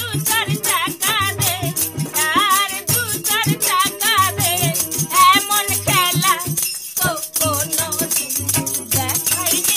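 Bengali snake-charmer's song: a singer's wavering, ornamented voice over a steady beat of drum and rattle, with a short break in the singing about seven seconds in.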